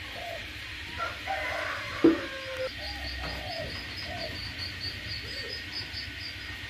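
Birds calling: short, low, curved calls repeat throughout, and a run of quick high chirps comes in after about two and a half seconds. A single sharp knock sounds about two seconds in.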